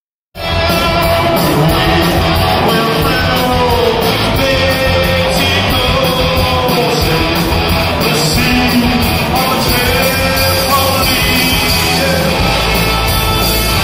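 Indie rock band playing live: electric guitar, drums and a sung lead vocal, cutting in suddenly just after the start and staying loud and steady throughout.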